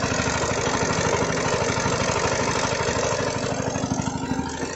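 Stationary single-cylinder diesel engine running at a steady speed with a rapid, even chugging beat; it drives the lighting at night. Slightly quieter near the end.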